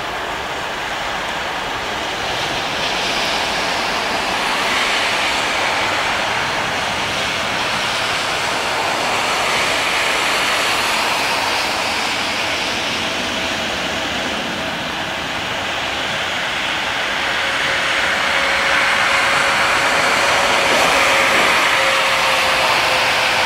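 Boeing 777 twin jet engines at takeoff power, a steady loud roar as the airliner climbs out, swelling toward the end. A faint engine tone slides slowly lower through the second half.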